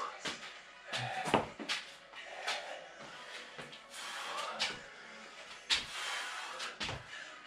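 Irregular thuds and scuffs of trainers landing on a bare concrete floor as a person does lunges, the two loudest about a second and a half in and near six seconds in.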